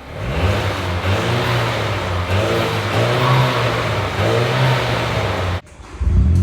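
Car engine and exhaust accelerating, its pitch rising and falling several times as it revs through the gears. It cuts off abruptly near the end, and the engine sound picks up again.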